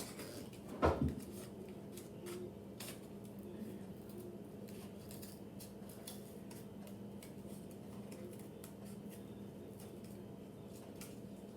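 Sharp scissors snipping through thin cardboard, a scatter of faint cuts and clicks, with one loud thump about a second in.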